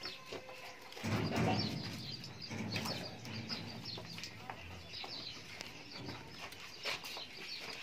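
Birds chirping and calling, with a faint low murmur underneath for a few seconds about a second in.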